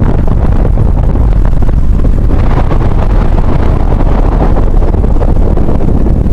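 Wind buffeting the microphone of a camera in a moving car, over the car's steady road rumble; loud and low throughout, with more hiss from about two seconds in.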